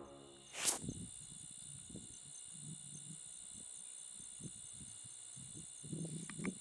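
Steady high trilling of crickets and other night insects. A single sharp click comes just under a second in, and faint, irregular low sounds grow near the end.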